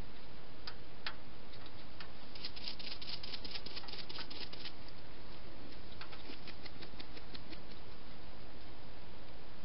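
A wild hedgehog moving close to the camera: a dense flurry of quick light clicks and rustles about two seconds in, then more scattered clicks, over a steady hiss.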